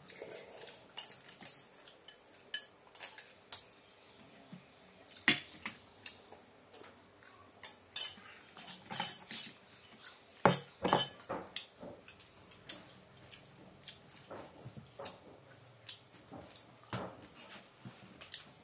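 Metal spoon and fork clinking and scraping on a metal plate and bowls during a meal, in scattered sharp clinks, the loudest a quick cluster about ten and a half seconds in.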